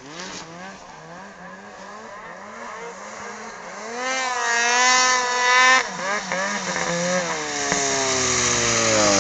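Snowmobile engine revving in repeated surges as the sled ploughs through deep powder, growing louder as it approaches. About four seconds in it holds a high rev, then drops off sharply and winds down in pitch as the sled closes in.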